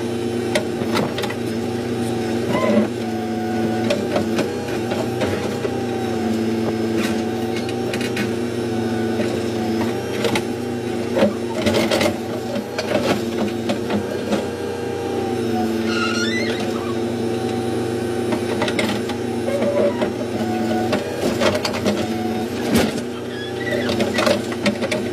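Backhoe's diesel engine running steadily, heard from inside the cab, its pitch dipping slightly now and then under hydraulic load, with scattered clanks and knocks as the bucket digs.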